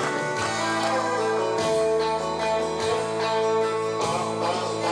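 Instrumental break in a country-style gospel song: guitar strumming steady chords over sustained accompaniment, with no singing.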